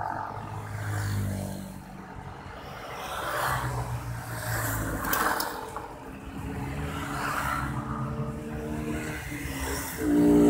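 Motor vehicle engine running as it travels, its pitch rising and falling with speed changes, over wind and road noise. Just before the end a louder engine sound comes in sharply.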